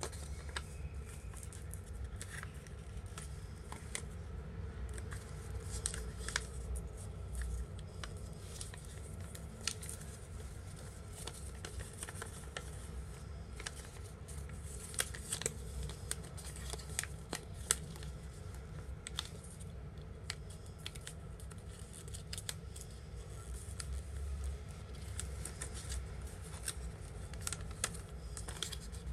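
Sheet of paper being handled, folded and creased by hand into an origami bird: irregular crisp rustles and ticks over a low steady hum.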